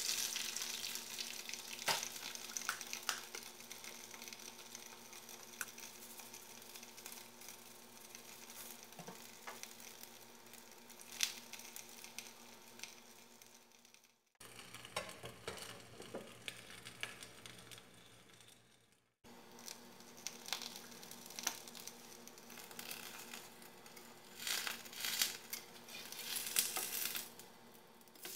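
Egg and bread sizzling in a hot frying pan, loudest just after the raw egg goes into the pan. It settles into a steady frying hiss with a few sharp clicks, then grows busier and louder near the end.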